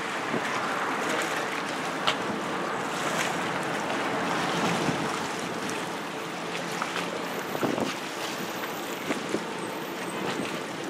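Wind buffeting the microphone over choppy sea water, with waves lapping and a faint steady boat-engine hum underneath. A few short knocks stand out, about two seconds in and again near the end.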